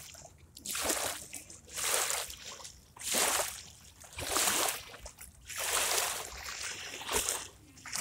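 Small lake waves lapping and splashing onto a grassy, pebbly shoreline, one wash of water about every second.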